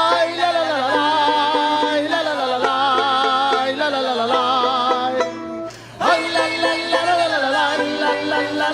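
Mexican folk music: a singer holding long, wavering notes over plucked and strummed strings. The sound drops away briefly about five and a half seconds in, then comes back with an upward slide.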